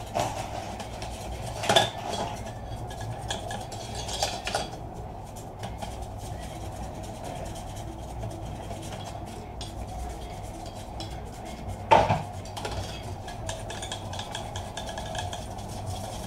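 Sheet-metal power-supply casing and its plastic cooling fan being handled, with scattered clinks and knocks, sharpest about two, four and twelve seconds in, over a steady low hum.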